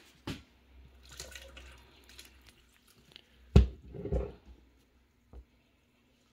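Water poured from a plastic pitcher into a toy volcano, with dripping and small splashes. About three and a half seconds in, the plastic pitcher is set down on the counter with a sharp knock, the loudest sound, followed by a second, weaker knock.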